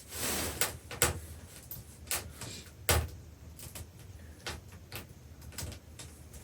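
Irregular knocks and clicks of objects being handled, about a dozen scattered through, the loudest a sharp knock about three seconds in, over a soft hiss.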